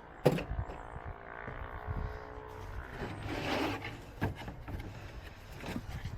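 Wooden panels being handled and fitted: a sharp knock just after the start, then a short whine lasting about a second and a half, a scraping rush in the middle, and a couple more knocks.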